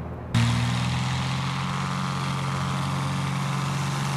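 Cessna 182's piston engine and propeller running, a loud, steady drone with a strong low hum. It cuts in abruptly about a third of a second in, replacing a fainter engine sound.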